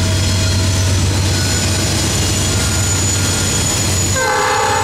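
Diesel locomotives of a freight train, three GE C40-9W units, running with a steady low drone. About four seconds in, a locomotive's air horn starts blowing a multi-tone chord.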